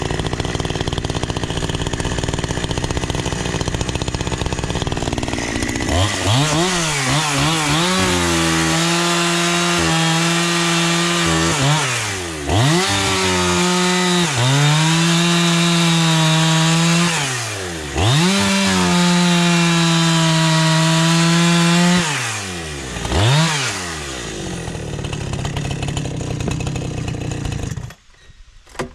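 Two-stroke chainsaw running steadily, then from about six seconds in revving up repeatedly to full throttle and holding it for a few seconds each time, with drops toward idle between. It cuts off suddenly near the end.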